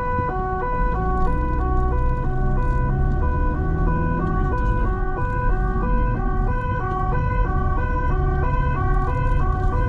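Police car's two-tone siren heard from inside the car, switching steadily back and forth between a high and a low note over engine and road rumble.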